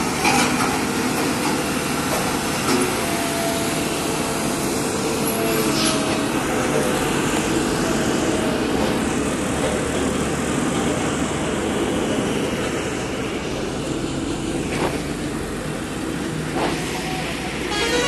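A Hamm single-drum road roller's diesel engine running as it passes close by, then heavy trucks driving past, a steady loud engine din throughout. A vehicle horn sounds during the first few seconds.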